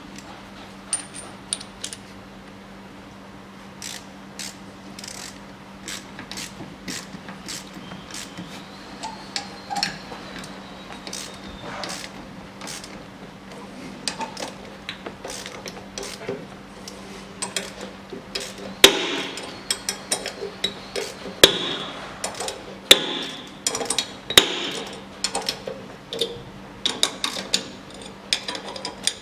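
Wrench and bolt clicks and sharp metallic clanks on a car's rear brake drum, as two M8 bolts are wound into its threaded holes to push the stuck drum off the hub. The clanks get louder and come more often, with a ringing edge, over the second half.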